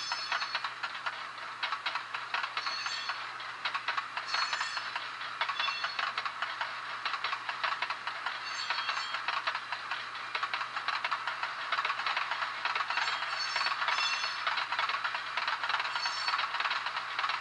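Simulated rolling railcar sound from a Soundtraxx Tsunami SoundCar sound decoder, played through a small speaker: a steady rattling of wheels and trucks with short high squeals every few seconds.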